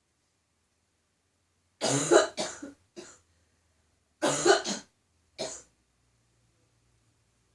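A woman with a tickly cough coughing in two short fits, a few harsh coughs each, the first starting about two seconds in and the second a couple of seconds later.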